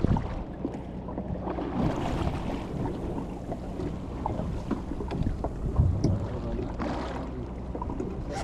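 Fishing boat on the sea: a low, steady engine hum with water slapping and splashing against the hull, scattered small knocks, and wind on the microphone.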